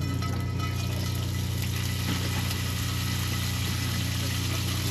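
Portable generator engine running at a steady speed, a constant low hum with a hissing layer over it.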